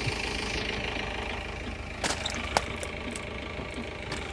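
A vehicle engine idling steadily, with a sharp click about two seconds in and another about half a second later.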